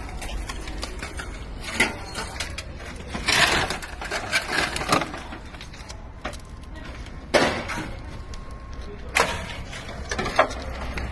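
Several irregular knocks and scuffs, as of things being handled and set down, over a steady low hum.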